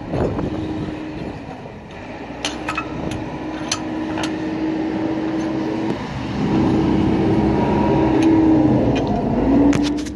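Angle grinder running with a steady hum, sagging in pitch twice as it bites into the U-joint cap on the driveshaft, then cutting off suddenly at the end. A few sharp metallic clicks a few seconds in.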